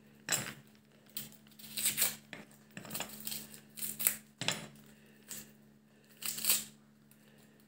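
Dry onion skin being peeled by hand: irregular papery tearing and crinkling strokes, with a faint steady low hum underneath.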